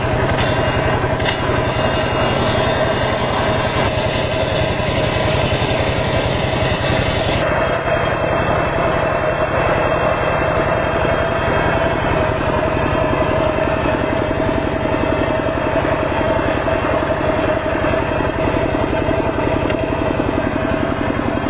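Kubota two-wheel walking tractor's single-cylinder diesel engine running steadily, belt-driving a homemade circular saw bench whose pulley and blade are spinning.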